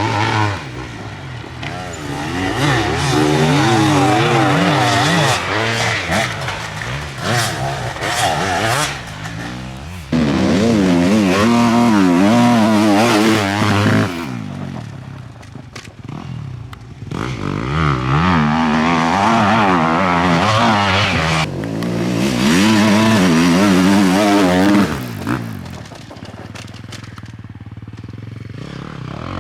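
Enduro motorcycles revving hard and unevenly on an off-road course, the engine pitch jumping up and down rapidly as the throttle is worked. Several separate passes, with quieter lulls about halfway through and near the end.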